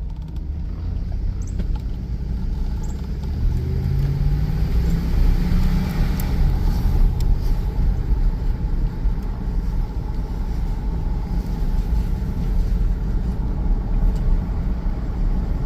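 2002 Chevrolet Tahoe driving, heard from the cabin with the driver's window down: steady engine and road rumble, with the engine note rising as it picks up speed about four seconds in. The engine runs without misfiring now that the broken, animal-chewed wires are repaired.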